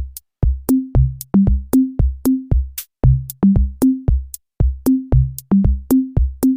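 Background music: an electronic drum-machine beat of quick clicks, each paired with a short low bass note that steps between a few pitches, about three hits a second.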